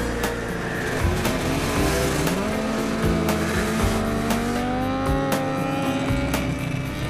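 Snowmobile engines running as the sleds pass, with the engine note rising in pitch through the middle, mixed with background music with a steady beat.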